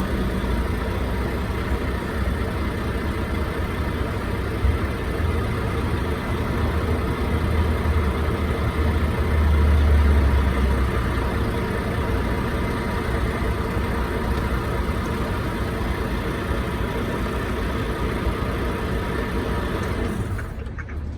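Motor vehicle engine running steadily at idle, a low rumble with a faint steady hum over it, swelling louder around the middle and easing off just before the end.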